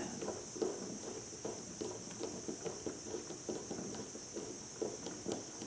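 Screwdriver starting the small screw of a Beaumont 1871/88 rifle's two-piece bolt handle, with faint, irregular light clicks and scrapes of metal on metal, several a second. A steady high trill sits behind it.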